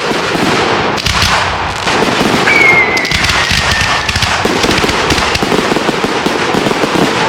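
Low-noise display fireworks crackling and popping in a dense, continuous rattle. A thin whistle-like tone slides down in pitch for a second or so about two and a half seconds in.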